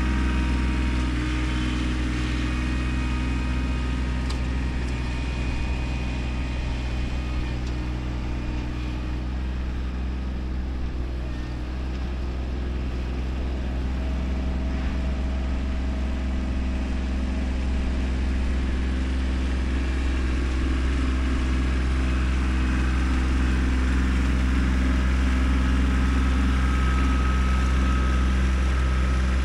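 Kubota tractor's diesel engine running steadily while working dirt, easing off a little about ten seconds in and building again near the end.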